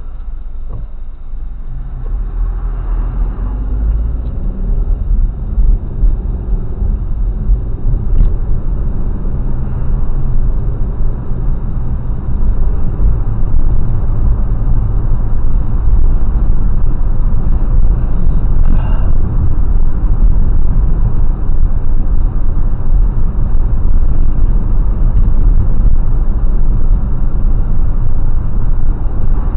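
Car driving on a road: a loud, steady low rumble of engine and road noise that grows louder over roughly the first half, then holds steady.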